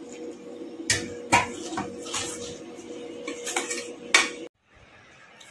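Metal spoon clanking and scraping against a metal mixing bowl as it stirs crumbly roasted semolina and sugar mixture, about six sharp knocks with soft scraping between them. The sound stops suddenly about four and a half seconds in.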